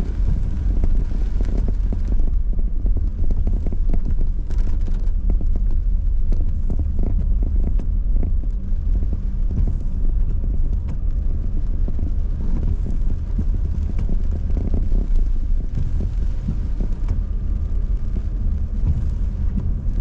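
Car being driven, heard from inside the cabin: a steady low rumble of engine and tyres on a wet road, with many scattered taps and clicks over it.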